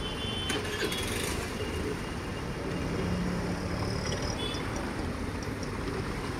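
Street background noise: a steady traffic hum with vehicles passing, and a brief low drone around the middle.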